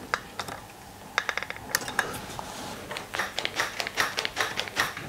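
Hands working on small parts and tools, making a run of short, hard clicks and taps that grow busier from about three seconds in.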